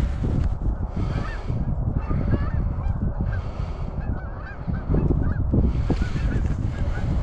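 A flock of Canada geese honking: many short calls overlapping one another, over a steady low rumble.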